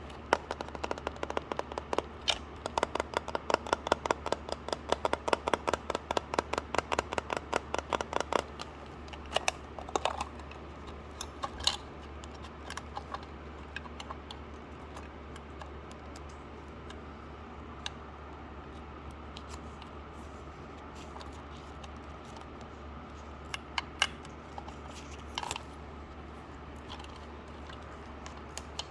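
Crisp small clicks and taps from hands handling packaging materials close to the microphone: a quick run of about five clicks a second for the first eight seconds, then scattered single clicks.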